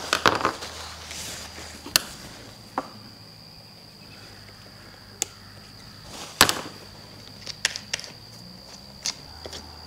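Scattered sharp clicks and taps of a screwdriver working the screws on a string trimmer's engine housing, the loudest about six seconds in, over a faint steady high whine.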